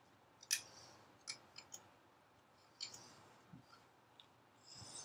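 Metal forks clicking and scraping against plates during a meal: a few scattered, short, light clicks, the loudest about half a second in.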